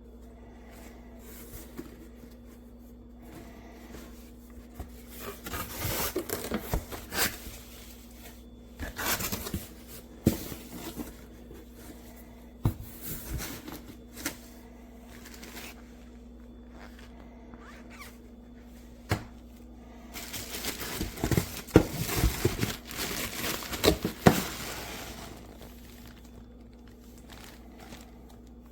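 Intermittent handling noises: clicks, scrapes and crinkling rustles in scattered bursts, busiest near the end, over a faint steady hum.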